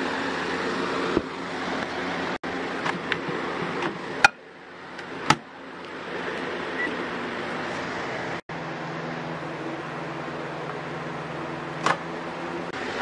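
Microwave oven hum with a few sharp clicks: two about four and five seconds in as the door shuts and the keypad is worked, then the steady hum of the oven running, and another click near the end as the door is opened.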